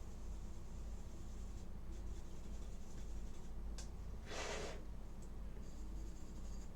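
Quiet scraping and handling of laptop parts and tools over a steady low hum, with a click a little before four seconds in and a short rush of air just after it.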